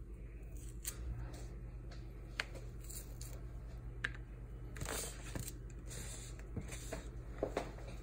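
Pomelo segment membrane being torn and pulled away from the fruit's flesh by hand: small scattered ticks and crackles, more of them in the second half, over a steady low hum.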